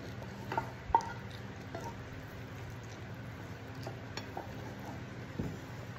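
Close-up eating sounds of a person chewing fried fish: soft wet smacks and a few sharp clicks, the loudest about a second in, over a low steady hum.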